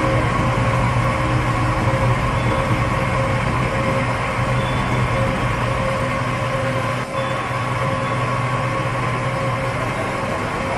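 CNC double-end facing and centering machine running steadily as its milling heads cut the ends of a train axle: a constant low machine hum with a noisy cutting wash over it, briefly dipping about seven seconds in.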